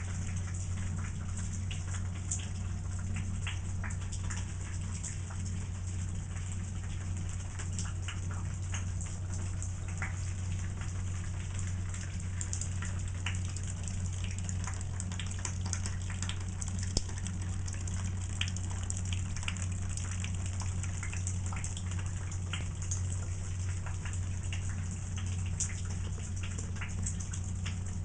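Water leaking through a hole in the ceiling, falling as a thin stream and landing in many small, irregular drips in a plastic-lined wastebasket, over a steady low hum.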